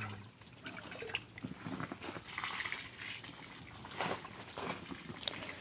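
Liquid sloshing and trickling as wet cow feed, with water and molasses poured in, is mixed by hand.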